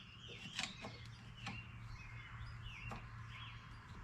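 Faint bird chirps over a steady low hum, with a couple of light clicks.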